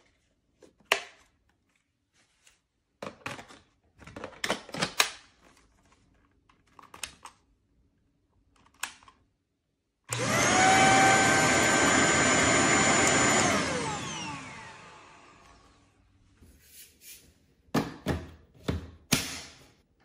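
Plastic clicks and knocks as the Shark HZ600C stick vacuum's dust cup is fitted and handled. About halfway through, the vacuum's motor switches on with a steady high whine for about three seconds, then winds down with falling pitch after switch-off. A few more clicks and knocks come near the end.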